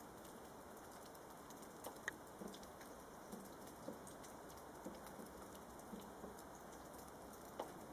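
Red squirrel gnawing a hazelnut shell with its teeth: faint, irregular small clicks and scrapes, about one a second, over a steady hiss.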